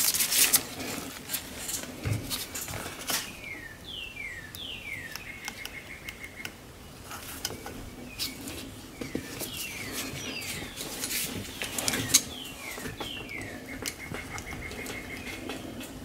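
Small clicks and metallic clinks of hand tools: crimping pliers and a screwdriver working heat-shrink butt connectors onto the horn-switch wires in the steering-wheel hub. Quick falling chirps come and go behind them.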